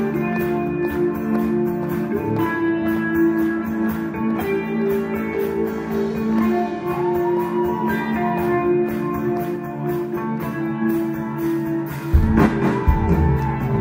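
Live band playing an instrumental passage with no singing: acoustic guitar strumming in a steady rhythm over held notes. About twelve seconds in, bass and drums come in and the music gets fuller and louder.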